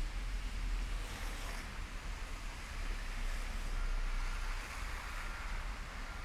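Wind rumbling on the microphone over a steady rushing hiss, in a snowstorm.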